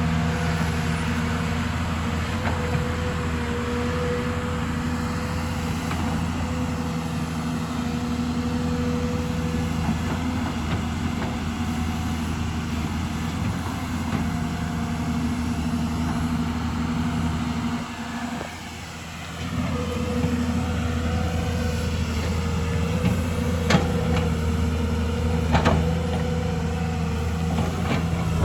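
Hydraulic excavator's diesel engine running steadily under work, dipping briefly about two-thirds through, with a few sharp knocks near the end.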